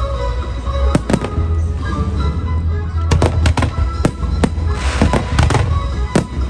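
Fireworks going off in a string of sharp bangs, with quick volleys about three seconds in and again around five seconds, over music playing behind them.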